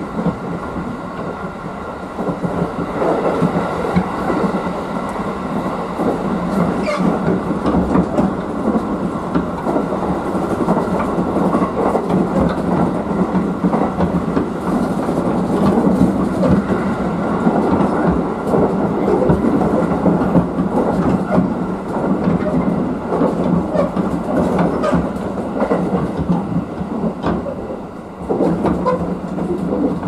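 Cabin noise of a JR 211 series 3000 electric multiple unit under way: steady running noise with wheels clacking over the rail joints, growing louder a few seconds in.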